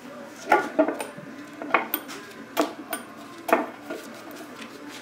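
A handful of sharp, irregularly spaced metal clinks as the valve-cover bolts of an LS V8 are pulled out and handled together.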